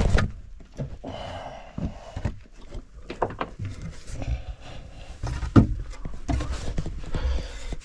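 Someone climbing up a rock-lined mine chute: irregular knocks, thumps and scrapes of boots and hands on rock and old timber.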